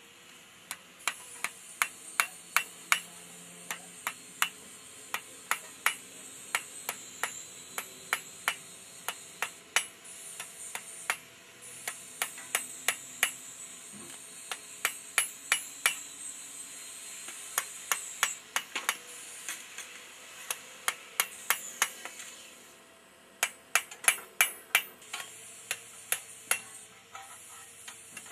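Hand hammer striking red-hot steel on an anvil: the blade of a tomahawk being forged from a railroad spike. Sharp blows come about two to three a second in runs with short pauses, and there is a longer pause a little over two-thirds of the way through.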